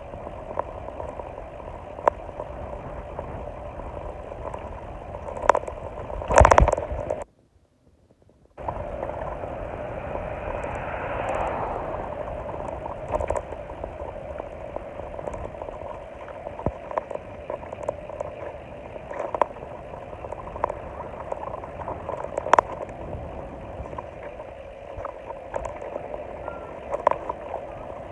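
Steady wind and road noise from riding along a road, with scattered clicks. A brief loud rumble about six seconds in cuts to a second of near silence before the noise resumes.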